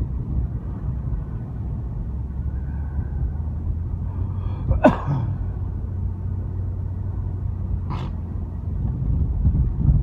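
Car driving, its engine and tyres making a steady low rumble heard inside the cabin. A sharp, short sound with a falling pitch cuts in about halfway through, and a fainter short one follows about three seconds later.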